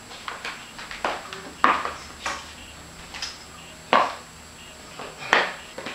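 Platform boot heels clacking on a tiled floor as a dancer walks and pivots around a dance pole: about six sharp, irregularly spaced knocks.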